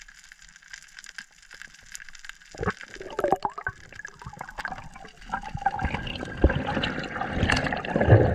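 Underwater crackle of faint clicks, then water rushing and gurgling past the microphone, growing louder from about two and a half seconds in as a freediver swims up, with splashing as he breaks the surface near the end.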